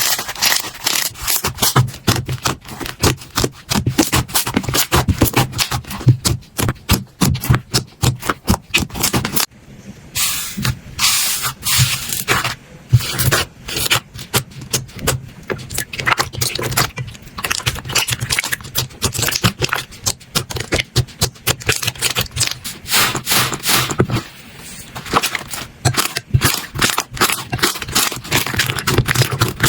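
Slime being squeezed, poked and stretched by hand, giving long runs of quick sticky pops, clicks and crackles, with short lulls about ten seconds in and again near twenty-four seconds.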